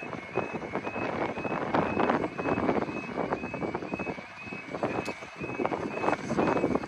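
Wind buffeting the microphone, with a thin two-tone electronic warning sound stepping high and low about three times a second throughout.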